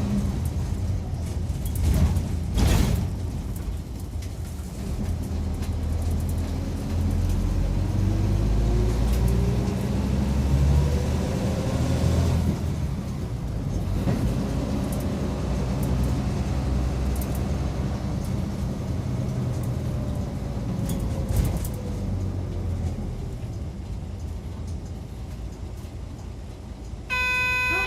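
Mitsubishi Fuso Aero Midi MK bus running, heard from inside the cabin: a steady engine and road rumble, with a whine that climbs in pitch twice as the bus gathers speed. There are a few knocks and rattles in the first three seconds, and a short electronic chime right at the end.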